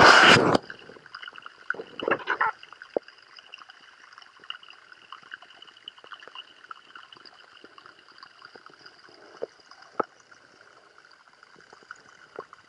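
Underwater sound picked up by a camera in the water: a loud rush of water in the first half second and a few smaller ones about two seconds in, then faint crackling with scattered clicks over a steady hiss.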